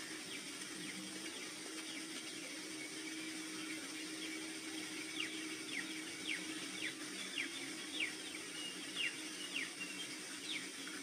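A bird giving short chirps that each fall in pitch, repeated about twice a second from about halfway in, over a steady low hum of ambient sound.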